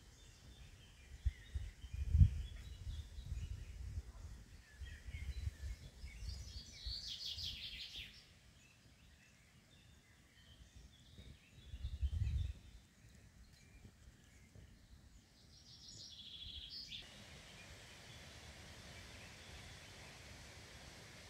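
Chirping calls of birds and frogs, with bursts of rapid pulsed calls about seven and sixteen seconds in, and two low rumbles on the microphone about two and twelve seconds in. After about seventeen seconds the calls stop and a steady faint hiss remains.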